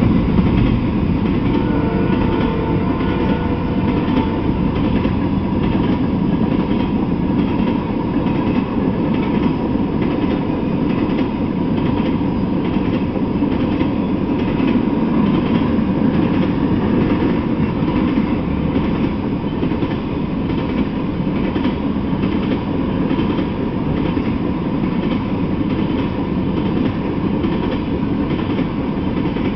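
Freight train of tank cars rolling past: a steady rumble of steel wheels on rail, with repeated clacks of the wheels passing over the rail joints.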